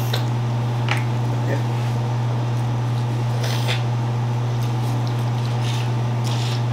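Crab legs being eaten up close: short sucking, smacking and shell-cracking noises at scattered moments, over a steady low hum.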